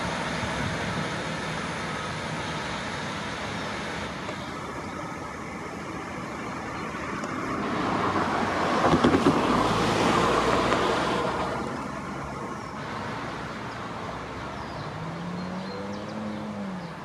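A Class 150 Sprinter diesel multiple unit passing along the track, its diesel engines running with wheel and rail noise. The sound swells as the train passes closest, with a few sharp clicks from the wheels over the rail about nine seconds in, then fades as it moves away.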